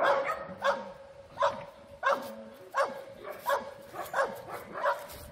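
A dog barking repeatedly and evenly: about eight short barks, each dropping in pitch, roughly one every 0.7 seconds.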